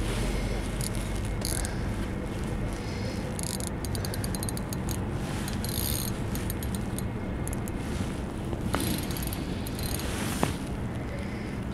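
Steady low rumble and hiss of wind and city background, with stretches of fast, light ticking from a feeder fishing reel being wound in as a hooked fish is retrieved, and two light clicks near the end.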